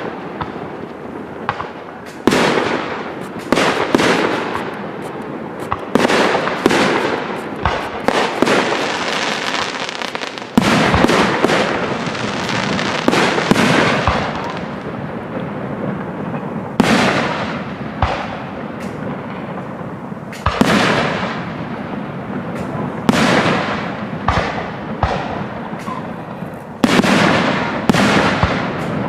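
Aerial fireworks display: shells bursting one after another every second or two, each bang trailing off in a fading rush, with heavier clusters of bursts about ten seconds in and near the end.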